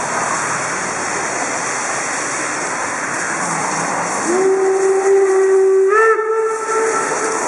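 Steam hissing steadily as DR Class 18 201 vents steam, then about four seconds in the locomotive's steam whistle sounds as a signal: it slides up into a held note, jumps higher about two seconds later and stops soon after.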